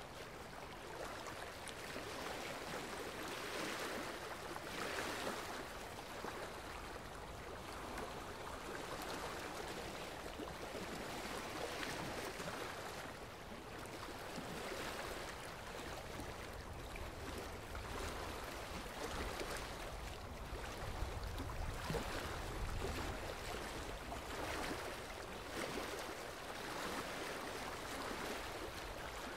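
Ultrasonic dental scaler working on tartar, heard as a steady hiss and gurgle of water spray and suction that swells and fades every few seconds.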